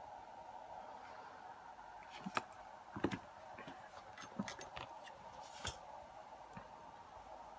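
A few small, sharp clicks and taps of metal tools and lock parts being handled, scattered a second or so apart, over a faint steady hum.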